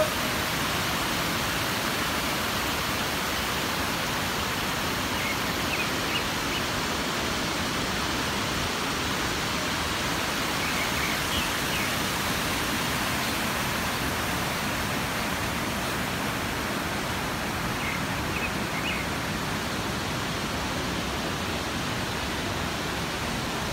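Water pouring over the steps of a concrete dam spillway: a steady rushing hiss.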